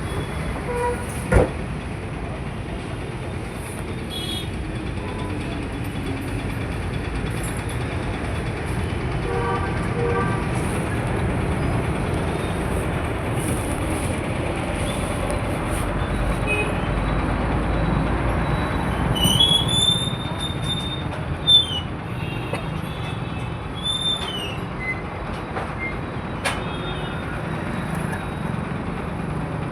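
Busy road traffic: a steady rumble of engines and tyres, with high-pitched vehicle horns sounding about two-thirds of the way through, one held for over a second and a short toot after it, and two sharp knocks, one early and one just after the long horn.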